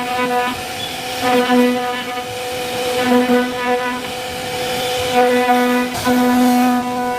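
A Syfing CNC router's spindle whines at a steady pitch while the bit carves a wooden door panel. The lowest part of the whine swells and fades every second or so as the cut loads and unloads.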